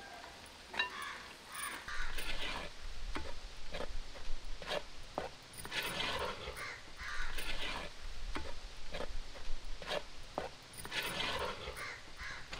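Wooden spatula scraping and knocking against the inside of a clay pot while dry-roasting grated coconut. It is a string of sharp taps with rasping scrapes of about a second each, several times over.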